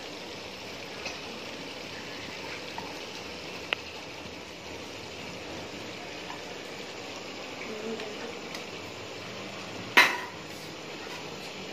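Chicken curry simmering in a metal pot with its liquid nearly cooked down: a steady low sizzle, with a few light ticks and one sharp click about ten seconds in.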